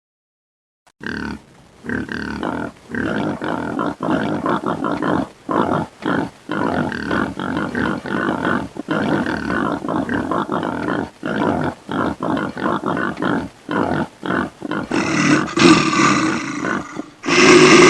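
An animal giving a rapid string of short, gruff growling calls, then a louder, harsher roaring call near the end.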